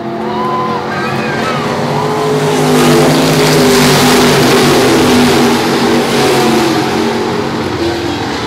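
A pack of IMCA dirt-track stock cars racing past, several V8 engines at once with their pitch rising and falling. The sound grows loudest a few seconds in as the cars go by close.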